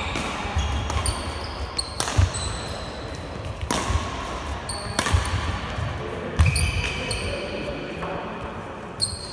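Badminton rally: sharp cracks of racquets striking the shuttlecock, about a second and a half apart, mixed with short high squeaks and thuds of court shoes on the sports-hall floor.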